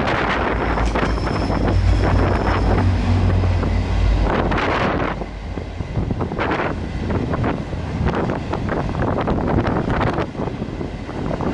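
Strong wind buffeting the microphone in uneven gusts. A deep rumble sits under it for the first four seconds or so, then drops away.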